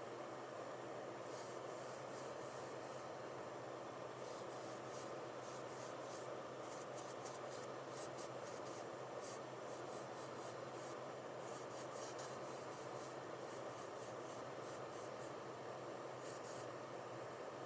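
Quick, irregular scratching and rubbing strokes on a small object, as in hand work during a toy restoration, over a steady low background hum.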